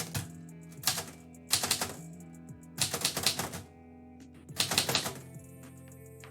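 Manual typewriter typing in about five short bursts of rapid key strikes, over steady background music.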